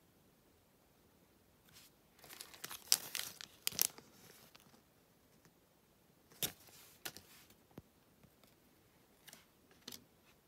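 Foil trading-card pack wrapper crinkling and rustling in the hands in two spells, the longer one starting about two seconds in and a shorter one past the middle, followed near the end by a couple of light taps as cards are laid down on a table.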